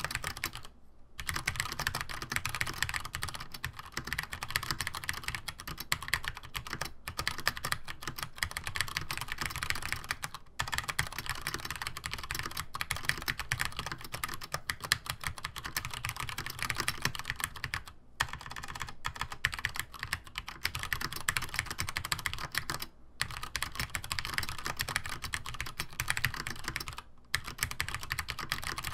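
Continuous fast typing on a Compaq-branded Cherry G80-1800 keyboard (G80-1838HPU) with vintage PCB-mounted Cherry MX Brown tactile switches, Cherry doubleshot keycaps and clipped, lubed stabilizers: a dense patter of key clicks and bottoming-out clacks. It stops for a few short pauses of under a second.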